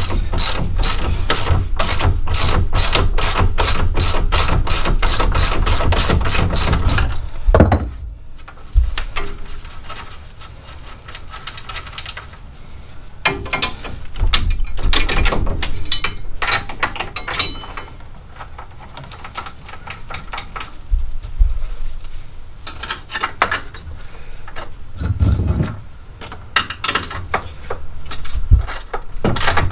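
Hand ratchet wrench clicking in a quick, even run as a suspension bolt is loosened to drop the spindle. The run stops about seven seconds in, then the ratcheting comes back in shorter bursts.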